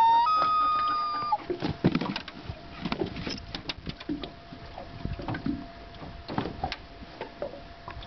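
Common loon wailing: a long call held on one note and then stepping up to a higher note, ending about a second and a half in. After it come irregular low knocks and thumps over a faint steady hum.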